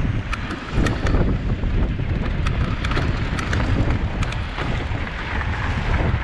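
Wind buffeting the microphone of a bike-mounted camera on a mountain bike ridden fast over a dirt trail, with tyre and trail noise. Sharp clicks and rattles from the bike come in scattered bunches, a few in the first second and more about halfway through.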